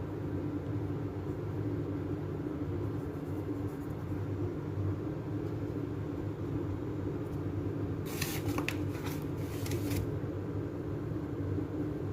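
Steady low mechanical hum, with a short stretch of rustling and clicking about eight to ten seconds in.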